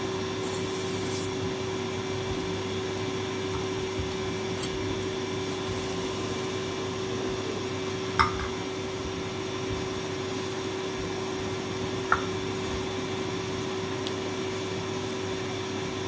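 A steady mechanical hum with one constant low tone. Two short metallic clinks about eight and twelve seconds in, as a steel bowl is handled against a china plate.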